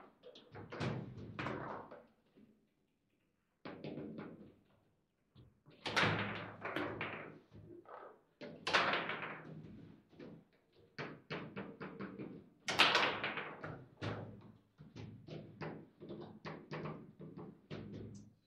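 Table football in fast play: quick, irregular clusters of sharp knocks and slams as the men on the rods strike the ball and it hits the table walls, with brief pauses between rallies.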